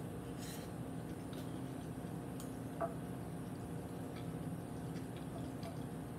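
Quiet eating sounds: chewing and faint clicks of metal chopsticks against a glass baking dish, with one sharper click near three seconds in, over a steady low hum.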